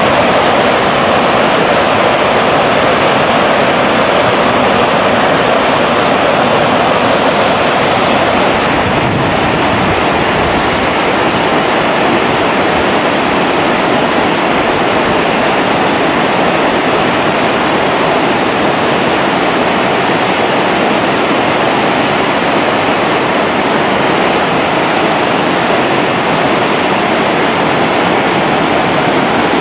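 Suwannee River whitewater rapids rushing over the shoals: a loud, steady wash of water noise.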